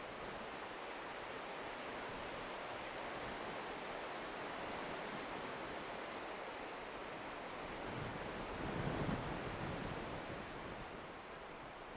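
Strong snowstorm wind blowing steadily, with a gust about eight seconds in that buffets the microphone with a low rumble before easing off.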